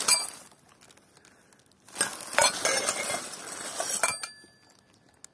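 Old glass cups clinking against each other as they are handled in a plastic bag, with the bag rustling: a brief clatter at the start, then a couple of seconds of clinks and rustling, and a faint glassy ring as it dies away.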